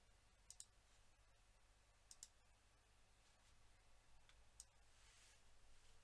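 Faint computer mouse clicks against near silence: a quick double click about half a second in, another about two seconds in, and a couple of single clicks later on. A low mains hum runs underneath.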